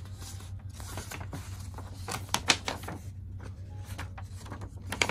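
A folded paper poster being unfolded by hand: paper rustling and crackling in short bursts, with one sharper crackle about two and a half seconds in.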